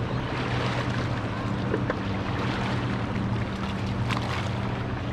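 Boat engine running with a steady low hum, over the wash of water against a rock wall.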